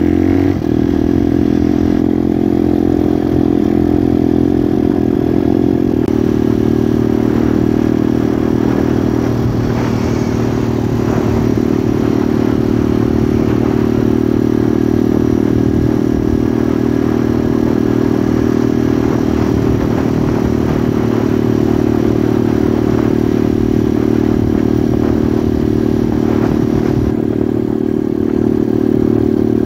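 Motorcycle engine running at a steady cruising speed, a constant drone that shifts slightly in pitch about six seconds in.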